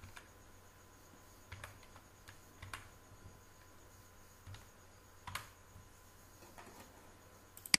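Computer keyboard keys tapped one at a time, a handful of faint separate keystrokes spaced irregularly, with one sharper, louder click near the end.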